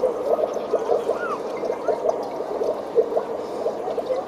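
Bubbling, gurgling underwater sound effects from a light show's soundtrack: a dense, irregular run of short blips, with one rising-and-falling glide about a second in.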